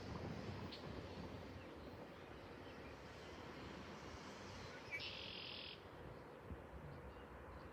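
Quiet outdoor background with birds chirping faintly over a low, even rumble, and one short high buzz about five seconds in.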